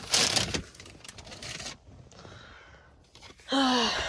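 Phone handling noise and clothing rustle inside a pickup truck cab, loudest in the first half-second, with scraping and a faint jangle. About three and a half seconds in comes a short pitched creak or groan with a slightly falling pitch.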